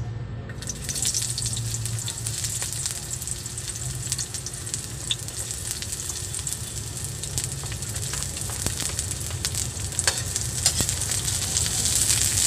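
Chopped onion and garlic dropped into hot oil in a steel wok, sizzling and frying with scattered pops; the sizzle starts suddenly about half a second in. Near the end a metal ladle stirs them and the sizzle grows louder.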